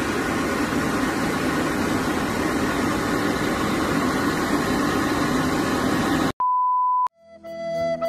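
Hair dryer blowing steadily on a freshly bathed Pomeranian for about six seconds, then cut off by a short, steady beep tone. Flute music starts just before the end.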